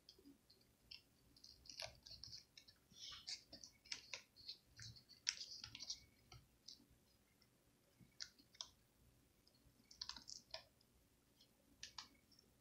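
Faint, scattered small clicks and taps of fingers handling the laptop's tiny display cable plug and connector. The clicks come thickest in the first half and again about ten seconds in.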